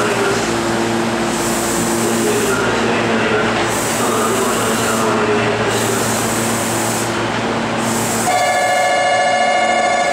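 Meitetsu 2000 series μSKY electric train standing at an underground station platform, its onboard equipment humming steadily. About eight seconds in, an electronic buzzer sounds for about two seconds.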